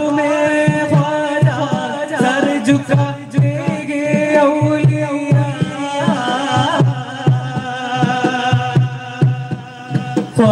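A group of male voices singing a song together through microphones, held notes gliding in a melismatic style, with a hand drum keeping a steady beat.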